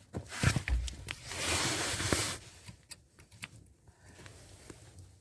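Small clicks and knocks of hand work, with a rustle lasting about a second, as a brake light switch and its mounting screw are fitted back under a dashboard.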